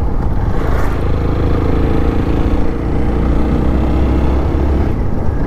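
Motorcycle engine running steadily while the bike is ridden along at road speed.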